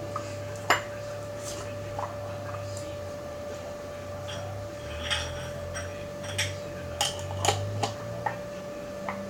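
Light, scattered knocks and clinks of a glass jar and its lid being handled as slime is put back into it. A steady hum runs underneath.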